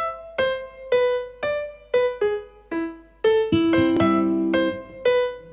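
Background music: a piano-like keyboard plays a melody of single struck notes that fade, with lower held chords coming in about three and a half seconds in.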